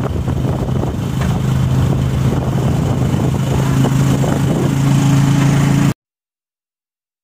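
Motor vehicle engine running at a steady drone, heard from inside the passenger compartment, growing a little louder about halfway through. The sound cuts off abruptly near the end.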